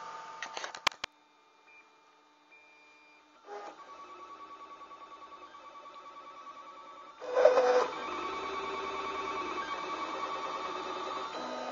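Stepper motors of a wooden-frame desktop 3D printer whining in several held tones with a regular pulse as the print head lays down two plastic L-brackets. The sound comes in after a few clicks and a quiet stretch and gets louder about halfway through.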